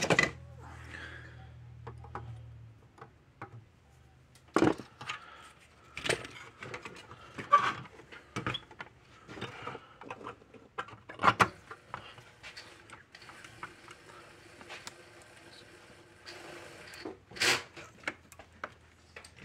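Irregular clicks and knocks of small hard objects being handled and set down on a workbench, with a low hum for the first few seconds.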